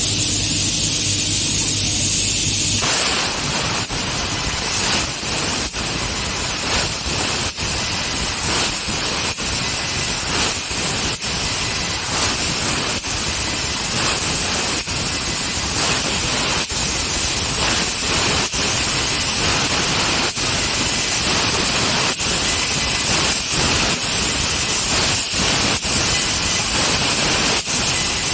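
A 6 kW laser cutter cutting 14-gauge stainless steel with compressed air as the assist gas: a loud, steady jet of air hissing from the cutting head. About three seconds in it turns into a fuller rushing noise, broken by frequent irregular sharp crackles.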